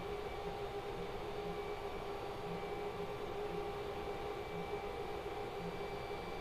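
Altron 3D printer running: a steady mechanical hum with several held tones over a hiss, and a soft low pulse about once a second.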